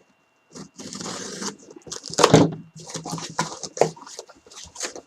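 Paper packaging being torn open and rustled by hand, a run of uneven crinkling and tearing noises.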